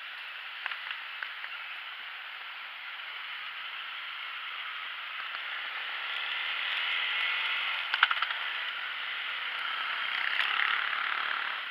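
Yamaha Sniper 150 motorcycle underway, heard from an on-bike camera as a steady rush of wind and road noise mixed with the bike's mechanical running noise. The rush swells from about six seconds in, with a sharp click about eight seconds in.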